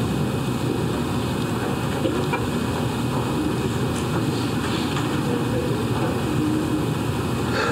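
Steady room noise, an even hiss and rush with no distinct events.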